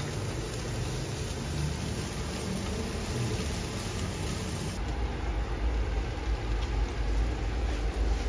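Kitchen cooking noise around a frying pan on a gas hob: an even hiss with a low rumble that grows louder about five seconds in.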